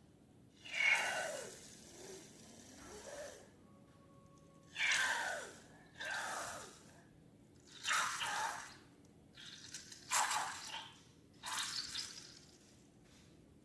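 Thick liquid slime ingredients squelching and gurgling out of balloons, in about eight short wet bursts of a second or so each.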